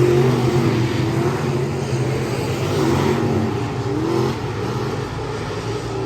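Race car engines running hard, the pitch rising and falling with the throttle.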